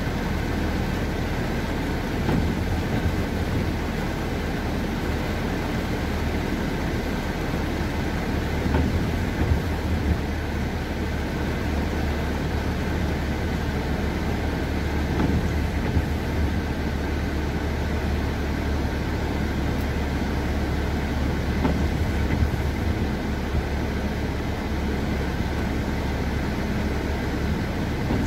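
Heavy rain falling on a car's roof and windscreen, heard from inside the cabin over the steady low hum of the car's engine.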